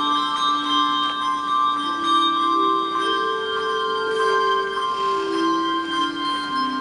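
Handbell choir ringing a hymn arrangement: long, overlapping bell notes that ring on, with the melody moving slowly from note to note over sustained chords.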